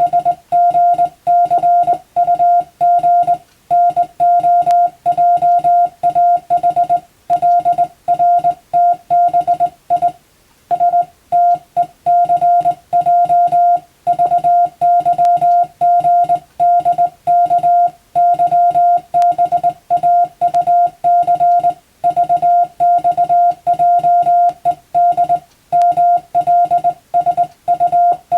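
Morse code tone of about 700 Hz keyed on and off in dots and dashes, with short pauses between words.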